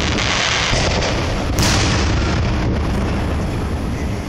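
Aerial firework shells bursting overhead: one sharp boom about a second and a half in, over a steady low rumbling noise from the display.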